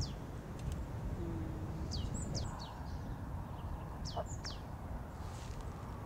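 Small songbird chirping: clusters of quick, high, downward-sweeping notes at the start, about two seconds in and about four seconds in, over a steady low outdoor rumble.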